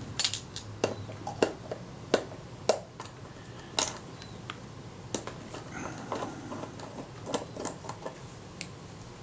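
Irregular small metallic clicks and taps as a small screwdriver works the top-plate screws of a Kodak Retina IIIc camera body and its metal parts are handled.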